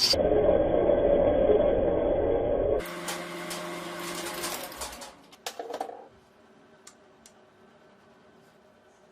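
A small electric workshop tool's motor running in short, abruptly cut segments, with a few short knocks about five and a half seconds in, then only faint room tone.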